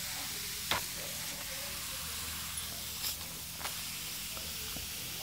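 Steady hiss of water spraying from a garden hose onto a plastic slip-and-slide sheet, with a few faint clicks.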